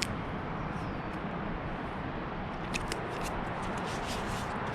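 Steady background noise with a few light clicks, one at the start and a couple about three seconds in.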